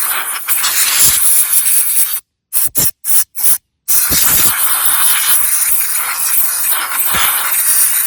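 Compressed air hissing from an air compressor's blow gun as dirt is blown off a lawn mower. It comes as a long blast, then a few quick short bursts, then another long blast.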